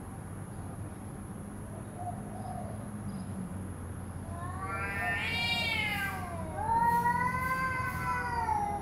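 Cats yowling at each other in a hostile standoff, the drawn-out threat caterwaul that comes before a cat fight. About halfway through, a wail rises and falls, then a longer, louder, wavering yowl is held until the end.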